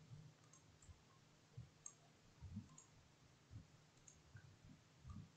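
Faint computer mouse clicks, about half a dozen scattered short taps, against near silence.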